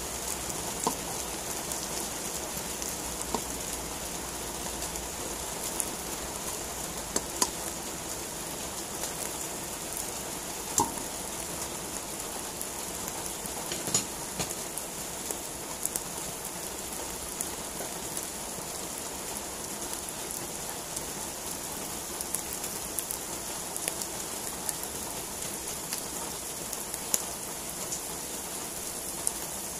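Mushrooms frying in hot oil in a pan: a steady sizzling hiss with scattered sharp pops.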